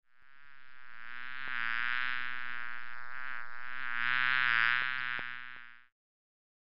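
Housefly buzzing steadily as it fades in, growing louder twice, then cutting off suddenly near the end, with a few faint ticks.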